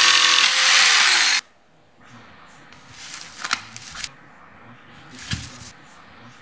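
Electric jigsaw cutting a laminate floor plank. Its motor drops in pitch just before the sound cuts off about a second and a half in. A few light clicks and rubs of boards being handled follow.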